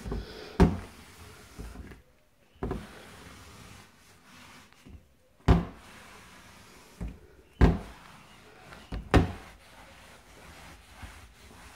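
Wooden kitchen cabinet doors knocking against their frames as they are wiped down with a cloth: about half a dozen sharp knocks a second or two apart, with faint rubbing of the cloth between them.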